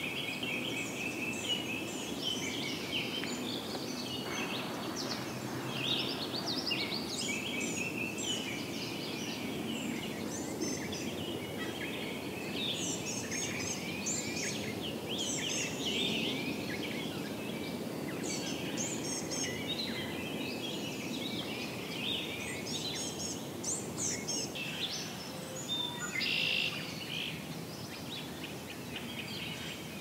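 Several songbirds singing at once, with many short overlapping chirps and trills throughout, over steady low background noise.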